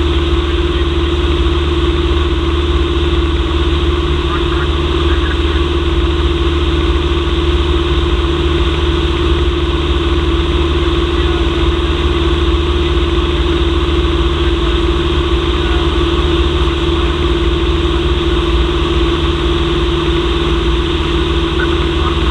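Cessna 172M's four-cylinder Lycoming engine and propeller running steadily in flight, heard from inside the cabin as an even drone with a strong steady hum.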